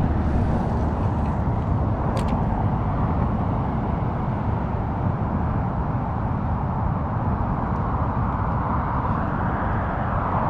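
Steady noise of road traffic from a busy road, with a single sharp click about two seconds in.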